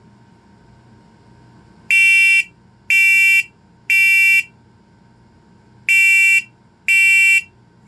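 First Alert smoke alarm sounding in test mode with its temporal-three smoke pattern: three loud, high-pitched beeps about a second apart, a pause, then three more. This is the standard evacuation signal for smoke or fire.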